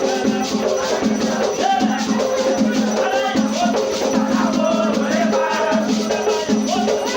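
Batuque ritual music: a group of voices singing a chant over steady percussion with rattling shakers.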